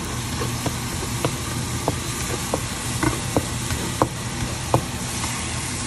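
Minced garlic sizzling in melted butter in a nonstick pan, with small irregular pops and crackles over a steady low hum, as the garlic fries toward golden brown.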